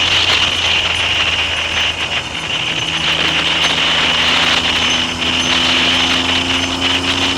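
Triumph Trident three-cylinder motorcycle engine running on the move, with heavy wind noise on the microphone. The engine note dips briefly about two seconds in, then climbs slowly.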